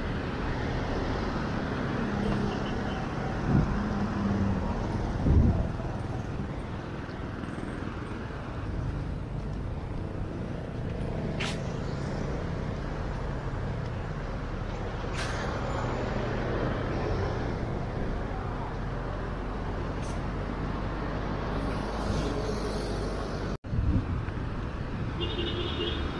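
Town street ambience: motor vehicles passing in steady traffic, with a few knocks and clicks. The sound drops out for an instant about three-quarters of the way through.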